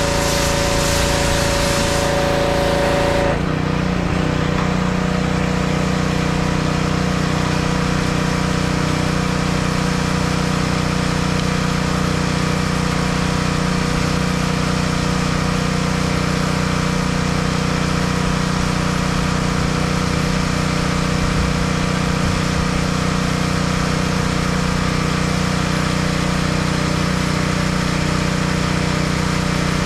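Engine-driven pressure washer: for about the first three seconds the wand sprays with a hiss, then the spray cuts off suddenly and the engine drops to a steady idle that runs on unchanged.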